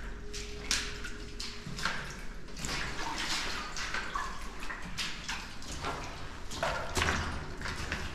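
Footsteps on the wet concrete floor of a corridor, splashing lightly, a step about every half second.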